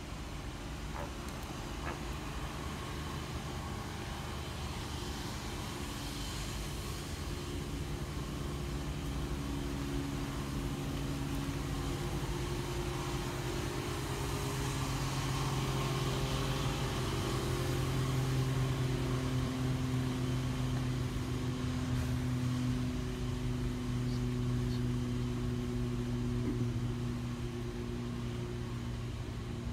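Steady low mechanical hum with a few held tones, growing louder toward the middle and easing off near the end.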